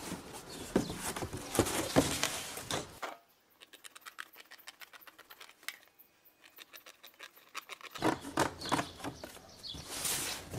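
Cardboard being cut and handled: a rapid run of crisp scratching and crackling clicks, fainter for a few seconds in the middle.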